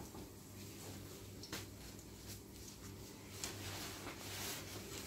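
Faint sizzle and crackle of burger patties frying in a pan of oil, with a sharp click of the metal spatula about a second and a half in, over a low steady hum.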